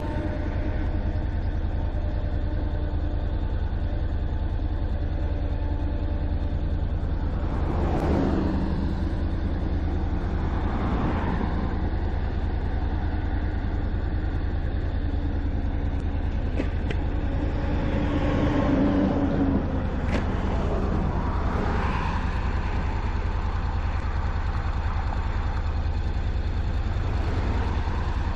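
Riding a Honda CTX700N motorcycle on the road: a steady low wind rumble and engine hum, with other vehicles swelling past several times.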